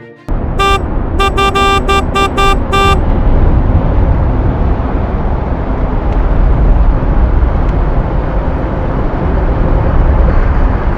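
About seven short, quick horn toots in the first three seconds, over a loud, steady low rumble that continues throughout.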